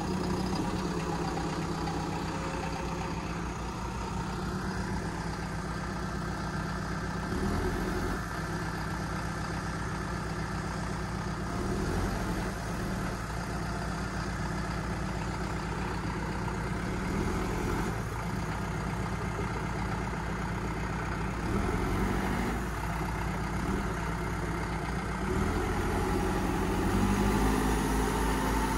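Caterpillar 420E backhoe loader's diesel engine running at a steady idle, swelling briefly in level several times.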